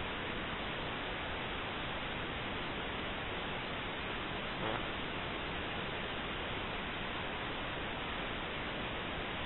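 Steady, even hiss with no change in level, room tone with a faint brief knock about two thirds of the way through.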